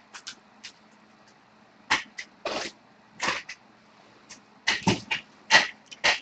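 A trading card being handled: a string of short, irregular rustles and scrapes.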